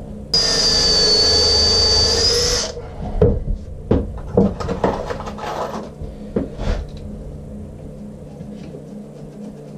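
Power drill running for about two seconds with a steady high whine, then stopping, followed by several knocks and clicks of tools and wood being handled on the bench.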